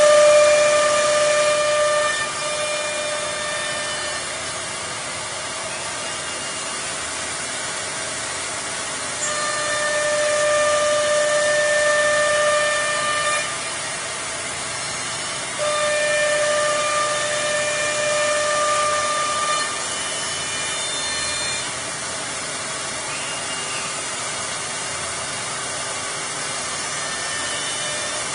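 Philicam four-spindle CNC router running: a steady high spindle whine comes and goes in stretches of a few seconds, over a constant rushing machine noise.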